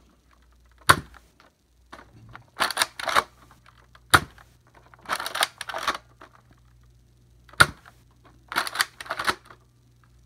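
Nerf Modulus Recon Mark II dart blaster fired three times, about three and a half seconds apart, each shot a single sharp pop. Between the shots comes a quick run of plastic clacks as the top slide is pulled back and pushed forward to prime the next dart.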